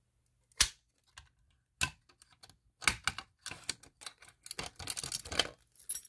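Metal clicks and rattles from a Simplex fire alarm pull station being handled and pushed shut by hand: two separate sharp clicks, then a quick clatter of small clicks for about two and a half seconds.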